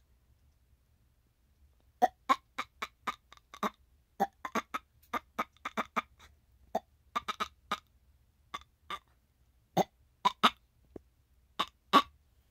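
A person's voice making a string of short, squeaky hiccup-like chirps, irregularly two or three a second, starting about two seconds in. She calls it her annoying sound, like a dying bird.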